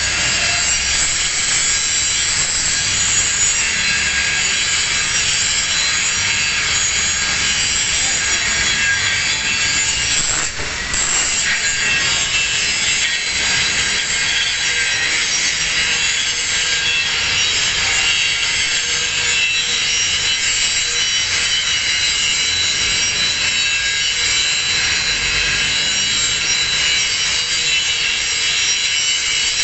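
Angle grinder grinding a single bevel into the edge of a steel plate, a steady abrasive grinding with a faint high whine, easing off briefly about ten seconds in.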